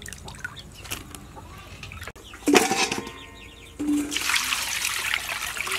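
Water poured from a jug into a stainless steel bowl of raw pork, a steady splashing pour that starts near four seconds in. Shortly before it, a single clank with a brief ring.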